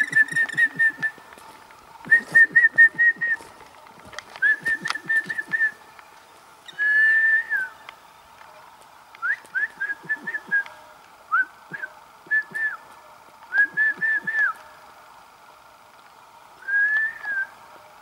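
Black woodpecker calling: several quick series of five to eight short, clear whistled notes with pauses between them. Twice, about 7 s in and again near the end, it gives a single longer drawn-out note.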